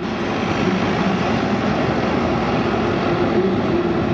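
A steady engine drone mixed with heavy rushing noise.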